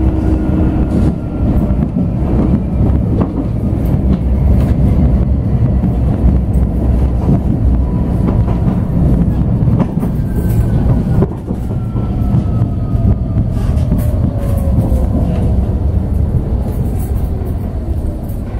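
Bombardier Incentro tram running on its rails, heard from inside the passenger saloon: a steady rumble with occasional clicks from the wheels. A whine falls steadily in pitch, most clearly in the second half.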